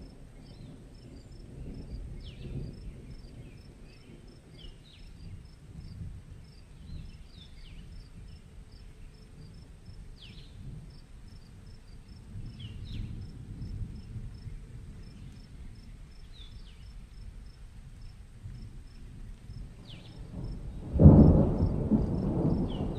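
Night ambience of crickets chirping in a fast, regular rhythm over a faint low rumble. About 21 seconds in, thunder breaks suddenly and loudly and rumbles on.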